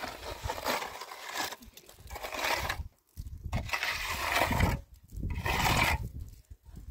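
Steel trowel scraping wet cement mortar across a concrete block wall in three long strokes, with short pauses between them.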